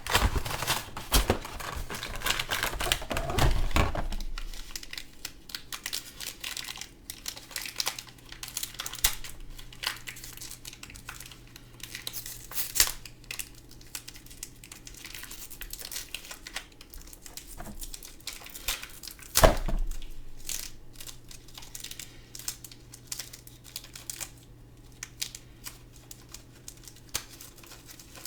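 Action-figure packaging being handled, crinkled and torn open in irregular rustles and clicks, busiest for the first few seconds, with one louder thump about two-thirds of the way through.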